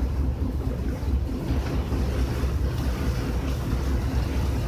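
Passenger ferry's engine running with a steady low drone, heard on deck with wind on the microphone.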